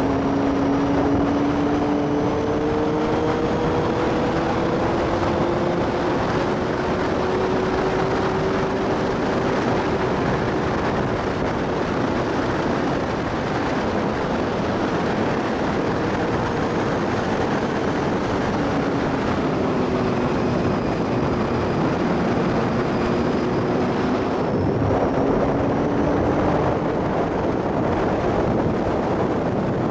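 Motorcycle engine running at road speed under heavy wind and road noise on the microphone; its note climbs slowly, fades in the middle, then comes back lower, dips and rises again.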